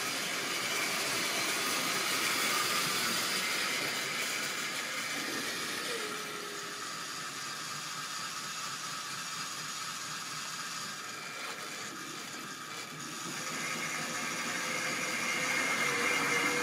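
Tri-ang OO-gauge model steam locomotive running along the track: its small electric motor whirs and its wheels rattle on the rails. The sound eases off a little about six seconds in, then grows louder from about thirteen seconds in as the locomotive comes forward.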